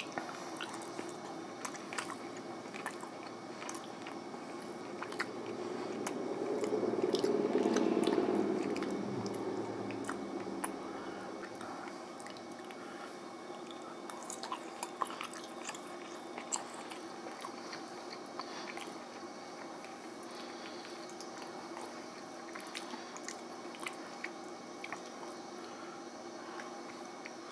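A person chewing and biting into garlic sesame noodles with beef, close to the microphone, with small wet clicks throughout and a louder low swell for a few seconds about a quarter of the way in.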